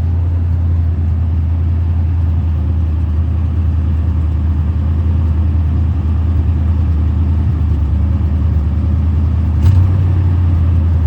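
1978 Corvette's L-82 350 small-block V8 idling steadily while still warming up. A short click sounds near the end.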